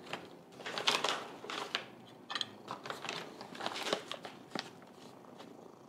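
Crinkly treat pouch rustling and crackling as a hand reaches in and takes treats out, in an irregular string of crackles and small clicks.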